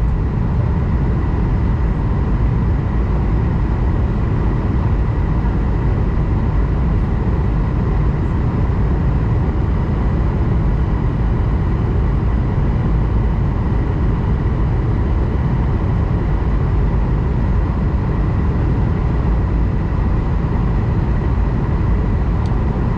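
Steady cabin noise inside an Airbus A220-100 airliner on approach: a constant rumble of the Pratt & Whitney geared turbofan engines and airflow, with a faint steady whine running through it.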